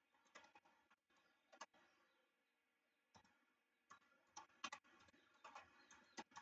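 Faint, irregular keystrokes on a computer keyboard: about ten soft clicks spread over near silence, coming more often in the second half.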